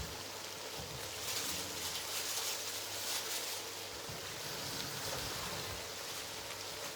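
Blended ginger, garlic and onion frying in red palm oil in a pot, a steady sizzle that swells a little between about one and three seconds in.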